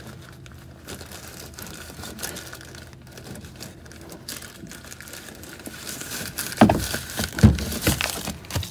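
Plastic zip-top bag crinkling and rustling as a hand grips the bagged oil filter of a 6.7 Cummins diesel and works it loose from its housing. Louder rustles and a couple of knocks come near the end as the filter comes free.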